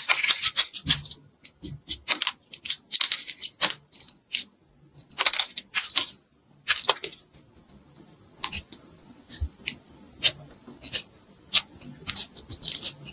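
Crisp, irregular crackling and snipping as soft modeling clay is worked with plastic craft scissors, with squeezing of the clay by hand near the end.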